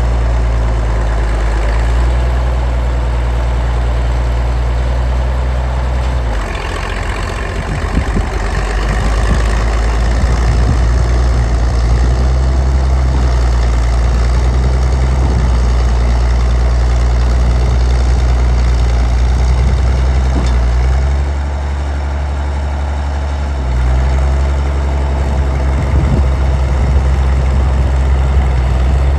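Diesel engine of a 1952 Caterpillar D6-9U crawler bulldozer running under varying load, its low note shifting several times as it works. Scattered knocks and cracks come a few seconds in and again near the end.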